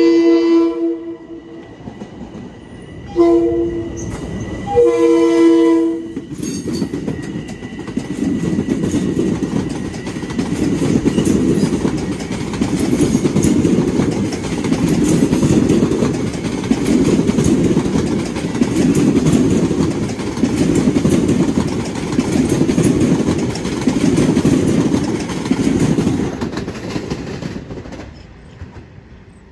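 Long Island Rail Road train horn sounding three blasts (long, short, long), then the train passing close by, its wheels rumbling over the rail joints in a regular pulse about every two seconds before fading near the end.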